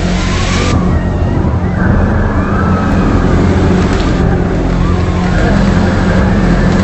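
Loud, steady, low droning hum with several even overtones, the unexplained 'strange sound in the sky', with a faint wavering higher tone now and then above it.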